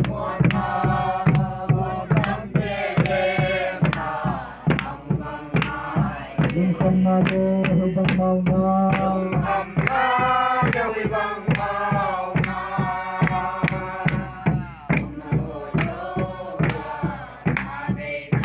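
A group of voices singing together in a chant-like song, with a drum struck on a steady beat about twice a second.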